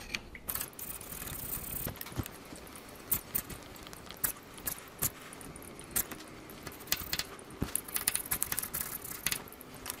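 Sharp woodworking chisel scraping and clicking against the engine block's water pump mounting face, chipping off old hardened gasket remnants. Irregular scrapes and sharp clicks, with longer rasping strokes about a second in and near the end.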